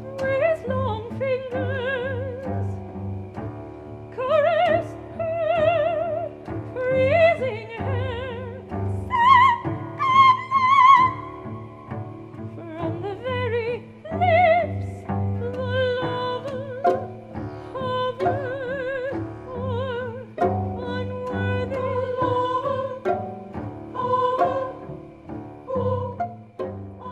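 Operatic soprano singing long notes with wide vibrato over low bowed strings, in phrases with short breaks; her highest, loudest notes come a little before the middle.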